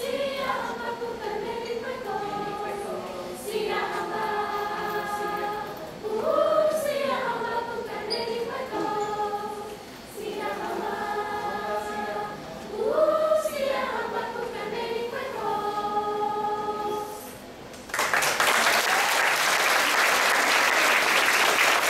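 Middle-school chorus of sixth- to eighth-graders singing, phrase after phrase. The song ends and the audience breaks into applause about eighteen seconds in.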